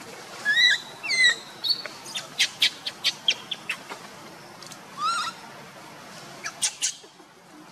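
Baby macaque giving short, high squeaky calls, some rising and some falling in pitch, with a quick run of sharp chirps in the middle.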